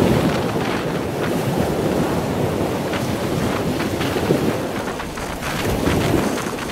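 Storm wind buffeting the camera's microphone, loud and rising and falling, over the wash of heavy surf.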